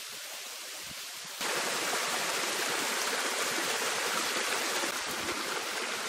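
Steady noise of a small waterfall's falling water, louder from about a second and a half in.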